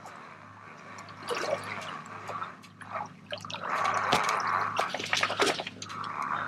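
Seawater lapping and splashing against the side of a small boat, with drips and small irregular splashes that grow busier from about a second in, over a low steady hum.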